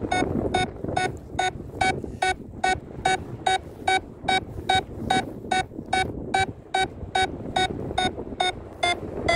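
Paragliding variometer beeping steadily at about two and a half beeps a second over wind noise on the microphone. The beeping signals the glider climbing in a thermal and stops near the end.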